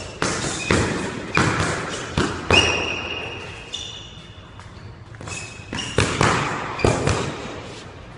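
Boxing sparring on a squash court. Sharp smacks and thuds of gloved punches and quick footwork echo off the bare walls, with short high squeaks of sneakers on the hardwood floor. The hits come in two flurries, in the first three seconds and again around six to seven seconds in, with one longer squeak about two and a half seconds in.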